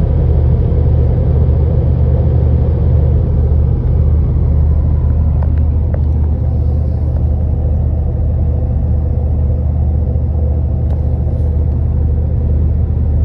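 Steady low drone of road and engine noise inside a moving pickup truck's cabin.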